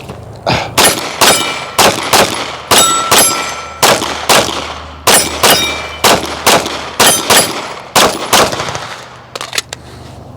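Glock 45 9mm pistol fired in a rapid timed string of about twenty shots over some nine seconds. Bullets striking a steel target ring out with a clang after some of the shots.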